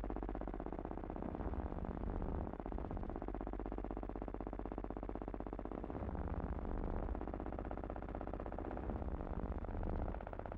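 A buzzing electronic drone made of several held tones that shift in pitch a few times. This is an added soundtrack noise, not the sound of the trucks, which were filmed silent.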